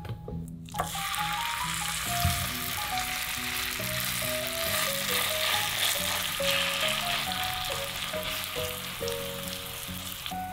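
Grated potato sizzling in hot oil in a nonstick pan while it is spread out with a silicone spatula. The sizzle starts suddenly about a second in as the potato goes into the oil, then holds steady.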